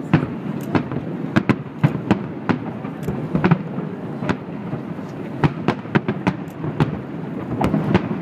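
Aerial fireworks shells bursting in quick, irregular succession: many sharp bangs, two or three a second, over a continuous low rumble.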